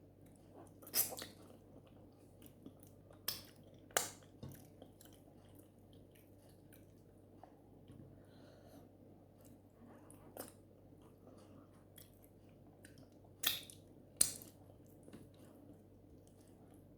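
Close-up eating sounds: wet lip smacks and chewing of soft plantain-and-oat fufu with palm nut soup, with about six sharper smacks at irregular intervals and softer mouth clicks between them.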